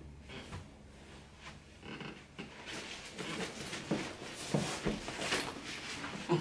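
Rustling of clothing and backpack with scattered light knocks and clicks, growing busier in the second half, as a person stands and swings a backpack onto a shoulder.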